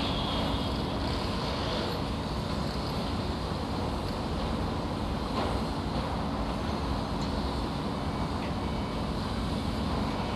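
Construction-site ambience: a steady low engine and traffic rumble with no distinct events, and a faint knock about five seconds in.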